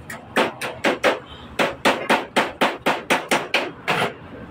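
A hammer tapping on metal in quick, even strikes, about sixteen blows at roughly four a second.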